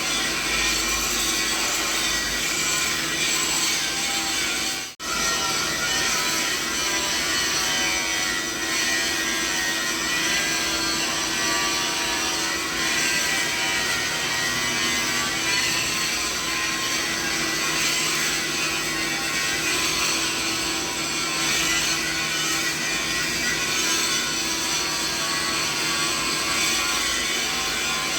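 Continuous mixed-frequency machine noise: a steady, dense din with faint steady tones under it, strongest in the upper-middle range. It cuts out for an instant about five seconds in.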